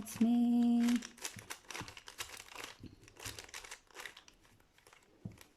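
Plastic 3x3 Rubik's Cube being scrambled by hand: its layers turned quickly one after another, a rapid irregular run of clicks and rattles.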